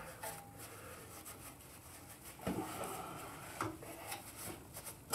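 Faint handling noises at a motorcycle's center-stand pivot: rubbing as a rag is worked against the pivot, with a few light metal knocks, the clearest about two and a half and three and a half seconds in.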